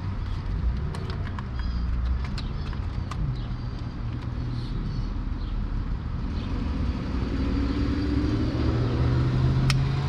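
Low steady rumble of a motor vehicle running, its hum getting louder over the last few seconds, with a few faint sharp clicks of plastic electrical connectors being handled and pushed into place.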